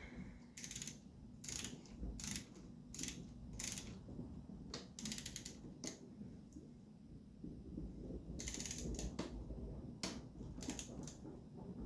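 Hand socket ratchet clicking in a series of short swings, with pauses between strokes, as bolts are run in.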